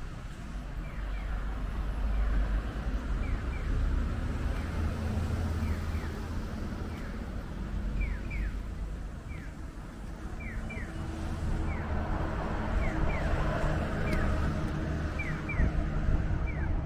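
Pedestrian crossing signal chirping: short high chirps falling in pitch, often in pairs, repeating every second or two over a steady low rumble of traffic and wind.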